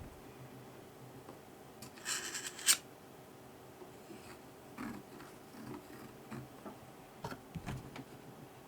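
Small hand work on scooter parts: a short rasping burst about two seconds in that ends in a sharp click, then scattered light clicks and rubbing.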